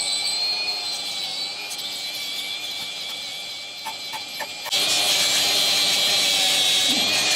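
Cordless drill spinning a wire brush against the stucco wall and metal flashing, scrubbing off loose stucco and tar debris before sealing. A steady high motor whine that gets much louder about two-thirds of the way through, as the brush is pressed in.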